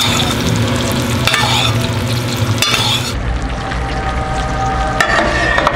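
Bone-in steak sizzling in hot fat in a stainless steel frying pan while it is basted with a metal spoon, with a few short scrapes of the spoon against the pan.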